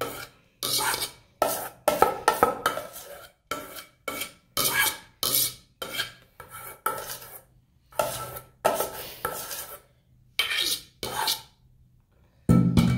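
Cake batter with mashed banana being mixed by hand in a bowl: a utensil scraping and knocking against the bowl in quick repeated strokes, about two or three a second, with a few short pauses.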